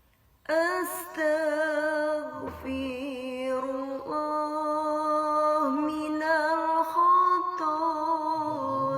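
A single voice singing a slow melody in long, drawn-out held notes with small glides between them. It begins after a brief silence about half a second in.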